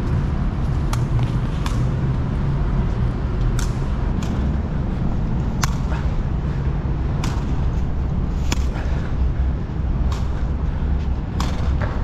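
Sharp smacks of a hard sepak takraw ball being kicked back and forth, one about every one to two seconds, over a steady low rumble.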